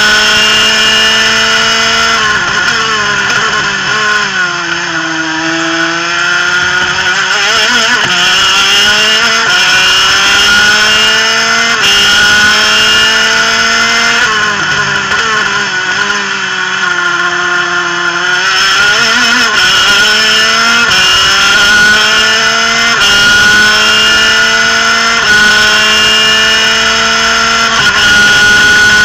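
Twin-cylinder two-stroke superkart engine at full throttle, heard from the kart over the rush of wind. Its pitch climbs and drops back at each upshift. Twice, a few seconds in and again about halfway, the pitch falls away through the downshifts under braking and then climbs again.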